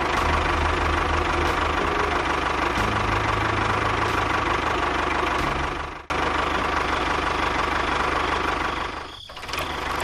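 Steady tractor-engine running sound, as of a mini toy tractor. It breaks off for an instant about six seconds in and dips briefly near nine seconds.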